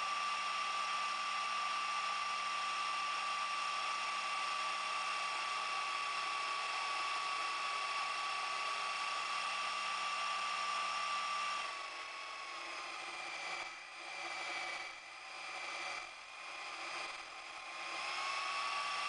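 Sherline mini lathe's motor running with a steady high whine. In the second half its pitch sags and the level dips several times, then it comes back up to speed near the end.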